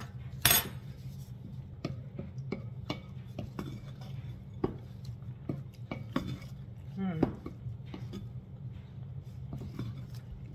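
A spoon clinking and tapping against a dish of dirty rice while it is stirred and tasted, in sharp irregular taps, the loudest about half a second in. A steady low hum runs underneath.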